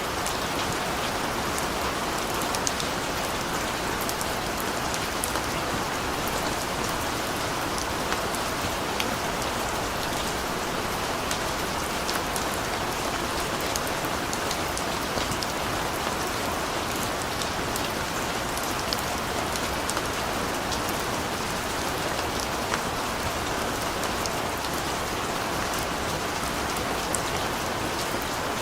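Steady rain falling on a street: an even hiss of rain with scattered sharp drop ticks.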